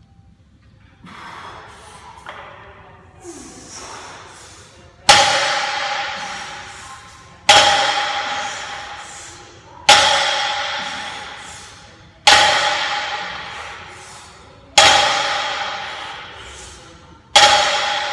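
A barbell loaded with about 300 lb of metal plates set down on the rubber floor at each deadlift rep: six sharp clangs about two and a half seconds apart, starting about five seconds in, each followed by a long metallic ring that dies away.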